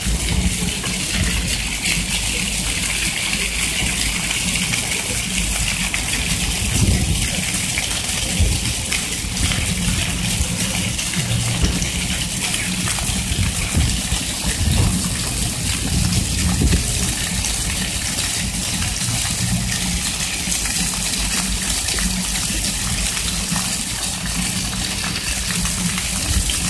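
Ground-level fountain jets splashing onto wet paving: a steady hiss of falling water, with an uneven low rumble underneath.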